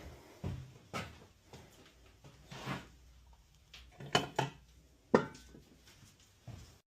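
Scattered knocks and clatters of old wooden boards and timber being handled during demolition, with a brief scrape about two and a half seconds in and the sharpest knock about five seconds in.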